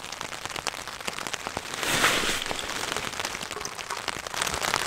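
Rain falling on a Tarptent Scarp 1 tent: many separate drop taps over a steady hiss, with a brief louder rush about two seconds in.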